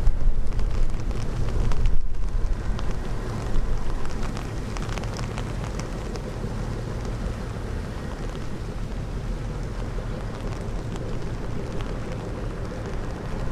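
Diesel engine of a river sand boat running with a steady low rumble, under wind buffeting the microphone in gusts, strongest in the first few seconds.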